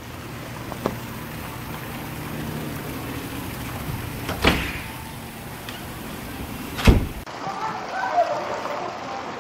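Steady background hiss broken by three sharp knocks: one about a second in, one midway and the loudest near the end. The midway knock is a door being opened.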